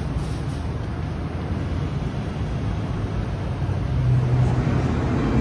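Low, steady rumbling noise, with a low note of background music coming in about four seconds in.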